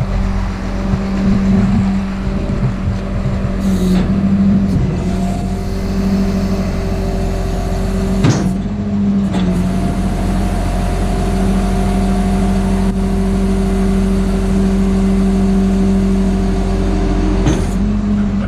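Truck engine idling with a steady hum. A sharp knock about eight seconds in, and lighter ones about four seconds in and near the end.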